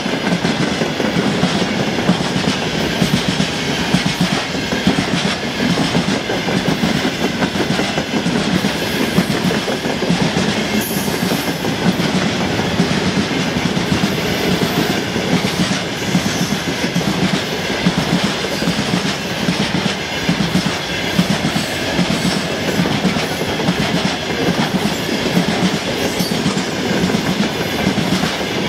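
Freight train of covered hopper wagons rolling past close by, its wheels clattering over the rail joints in a steady clickety-clack.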